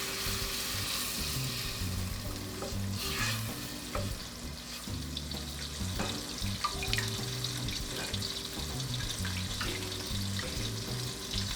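Butter sizzling in a saucepan, with scattered clicks of a utensil against the pan, over soft background music.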